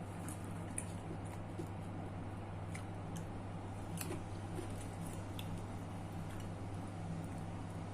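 A person chewing and eating, with faint scattered mouth clicks and smacks, over a steady low hum.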